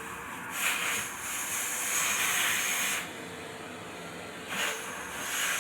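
Vacuum cleaner running, its airflow hiss swelling twice for a couple of seconds each time over a faint steady hum.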